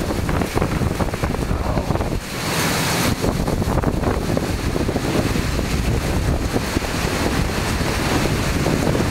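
Strong thunderstorm wind gusting and buffeting the microphone with a heavy low rumble, over the steady hiss of heavy rain. A louder hissing gust comes about two to three seconds in.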